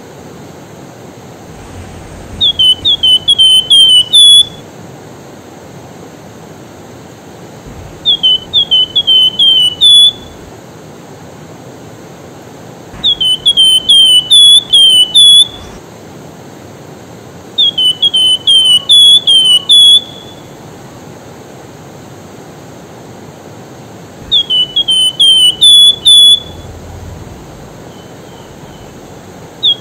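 Javan fulvetta (wergan jawa) singing: five phrases, each a quick run of five or six clear, high, down-slurred whistles that ends on a slightly higher note, about every five to six seconds. The song is its call to the opposite sex. A steady rushing hiss runs behind it.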